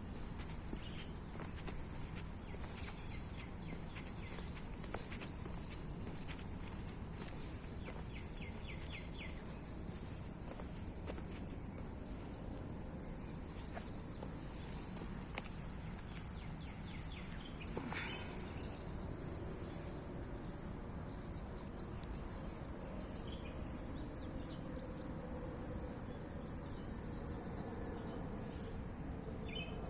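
Woodland ambience: a high, buzzy trill, one to two seconds long, repeats every few seconds over a low, steady outdoor rumble, with a few fainter chirps in between.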